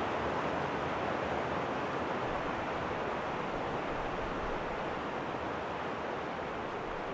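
Stream water rushing over a low rocky cascade, a steady even rush that eases off slightly near the end.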